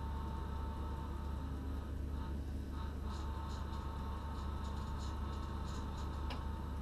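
Steady low electrical hum in the driver's cab of a Z 6400 electric multiple unit standing still, with no traction noise. A thinner, higher steady whine rides over it and stops about six seconds in, with a few faint ticks.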